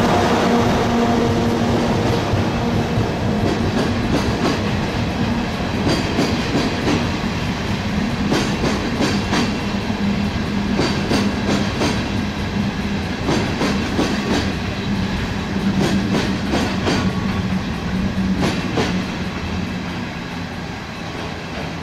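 A freight train of Hoki 800 ballast hopper wagons hauled by an EF64 electric locomotive rolls slowly past, under a steady low hum. The wheels clack over a rail joint in groups every two to three seconds, and the sound fades near the end.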